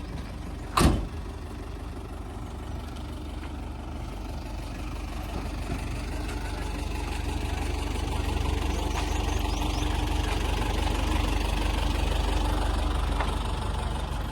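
JCB 3DX backhoe loader's diesel engine running steadily, growing gradually louder through the middle as it works, with one sharp knock about a second in.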